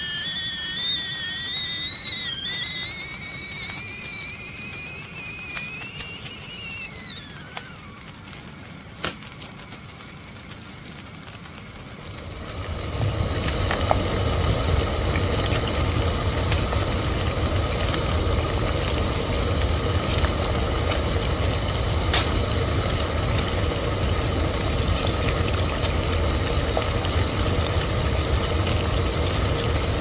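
Tea kettle whistling, the whistle wavering and rising in pitch for several seconds, then sliding down and dying away about seven seconds in. After a quieter stretch with a few clicks, a loud, steady low rumble with a hiss starts about twelve seconds in and holds.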